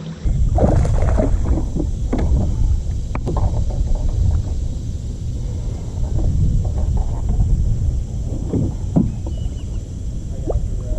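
Low, uneven rumble of a john boat under way on the water.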